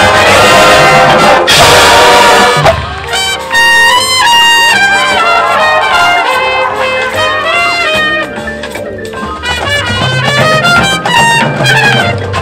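High school marching band brass playing loudly, full ensemble with a crash about two seconds in. The sound then thins to held and sliding brass lines and builds back up with heavy low brass near the end.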